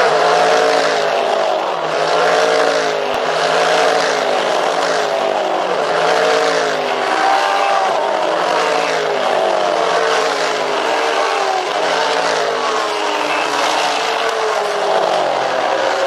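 A train of GT race cars passing one after another at racing speed, several engines heard at once with their notes continually rising and falling as each car approaches and goes by.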